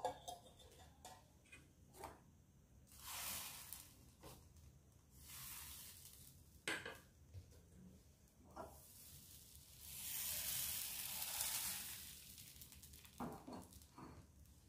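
Appam rice batter sizzling faintly on a hot appam pan, in several short hissing spells with the longest about ten seconds in. A few sharp knocks of the pan come in between, and near the end it is swirled by its handles.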